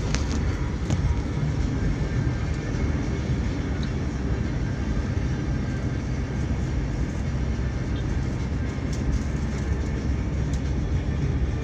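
Steady low rumble of a car's engine and road noise heard from inside the moving car, with a few faint clicks.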